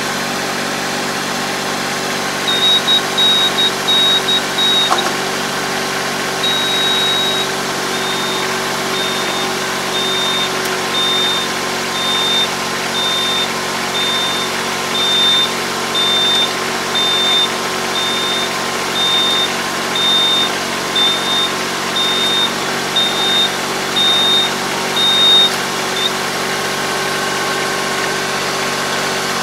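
Iseki semi-crawler tractor's diesel engine idling steadily while the Kobashi puddling harrow folds up hydraulically. A high electronic warning beep sounds over it: a few scattered beeps, one longer beep, then short beeps in an even rhythm a bit under twice a second that stop near the end.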